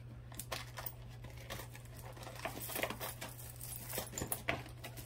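Hands rummaging through a pile of costume jewelry: beads, chains and metal pieces clicking and rattling against each other in irregular small clicks, over a faint steady low hum.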